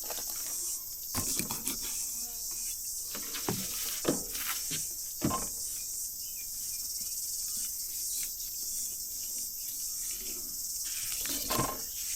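Steady high-pitched insect chorus, with a few short knocks and clicks scattered through it.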